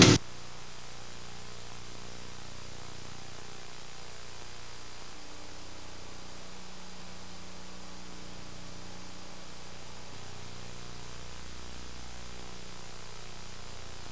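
Music cuts off abruptly just as it begins, leaving a steady hiss with a faint low hum: the noise floor of a VHS tape's silent stretch between commercials.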